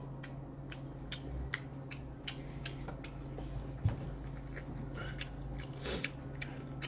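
A person chewing and biting food close to the microphone, with many small scattered clicks and smacks over a steady low hum.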